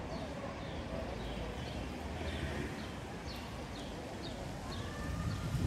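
A kitten chewing raw chicken pieces, with short bird chirps repeating over a low street hum.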